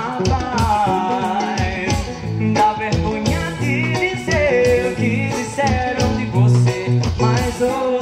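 Live band music: a man singing over electric guitar and drums, with a steady beat and sustained low notes underneath.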